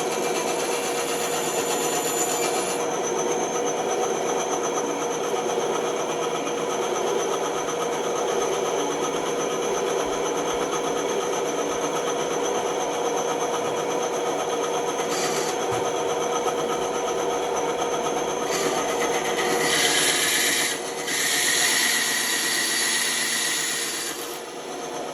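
Bandsaw running with a steady hum while its blade cuts through wood, with two louder hissing stretches near the end.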